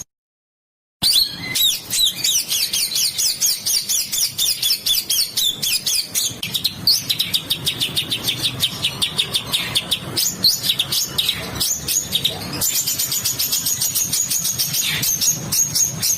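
Small songbird singing harsh, rapid-fire phrases, with long runs of fast, evenly repeated high notes. It starts after a brief gap of silence about a second in.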